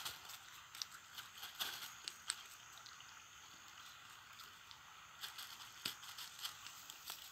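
Nylon cast net being handled and its fish picked free: faint, scattered crackling and small clicks over a steady background hiss.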